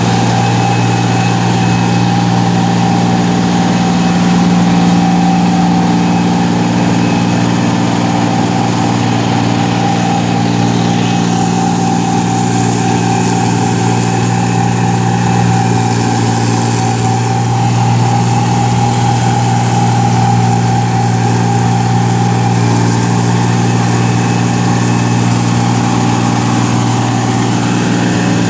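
Rice-harvesting machine's engine running steadily under a constant drone, with a steady whine above it.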